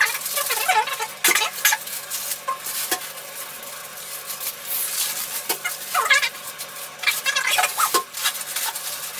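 Crinkling and rustling of disposable heat-pack packets being handled, with sharp light clicks and taps as the packets drop into an empty plastic bathtub.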